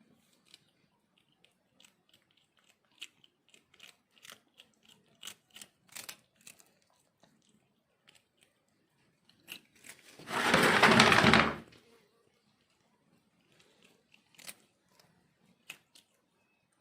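A cat chewing and crunching its food in quick, irregular clicks. Midway there is one loud rustling noise of about a second and a half, louder than the chewing.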